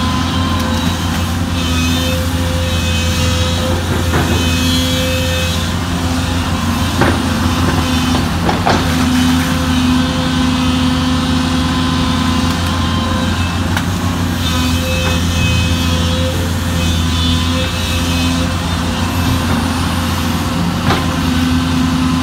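Sunward SWE210E long-reach excavator's diesel engine running steadily under load as the hydraulic boom digs and swings buckets of mud, with a few short knocks along the way.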